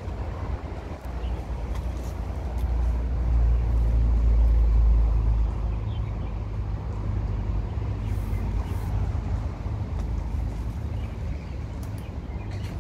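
Low rumble of road traffic, a heavy vehicle swelling louder a few seconds in and then easing off.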